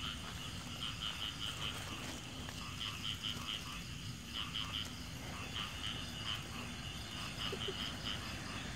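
Frogs calling in the night forest: short, high-pitched pulsed calls in quick runs of three or four, repeating every second or so.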